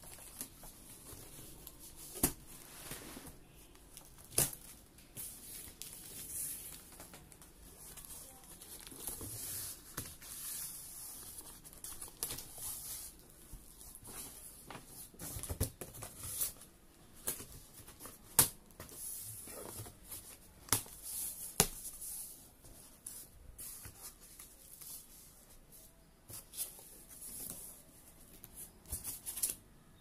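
Cardboard shipping box of a washing machine being opened and handled by hand: irregular scraping, rustling and tearing of cardboard and packing, with sharp knocks and taps scattered throughout.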